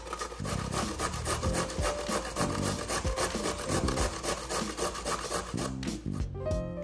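A carrot being grated by hand on a stainless-steel box grater: a rapid run of rough rasping strokes that stops near the end.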